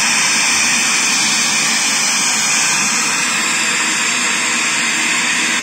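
Sony CRT television's speakers playing loud, steady no-signal static hiss, which cuts off abruptly at the very end. The static shows the replaced speaker is working again; there is no cable TV signal.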